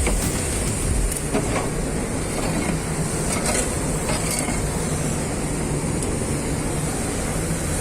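Steady industrial plant noise: machinery running with a low hum and a high hiss, and a few faint clicks.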